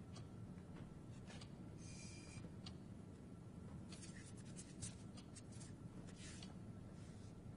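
Quiet room tone with a low steady hum, broken by soft scratching about two seconds in and a run of light clicks and scratches in the middle, like small objects being handled.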